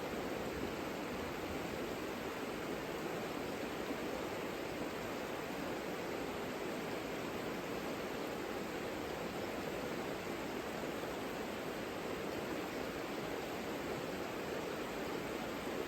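Savica river flowing, a steady, unbroken rush of water.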